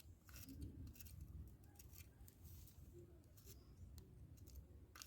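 Near silence: faint scattered clicks and light handling noise over a low hum.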